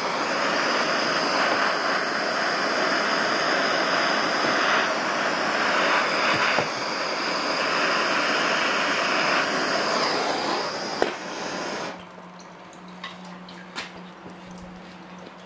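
Handheld gas torch hissing steadily as its flame heats the hot cylinder of a small Stirling engine. About eleven seconds in there is a click, and the hiss cuts off a moment later, leaving a faint low hum and a few light clicks.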